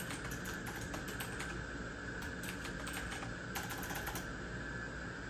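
Typing on a Thermaltake Level 20 RGB mechanical keyboard with clicky Cherry MX Blue switches: quick, irregular key clicks that thin out about four seconds in.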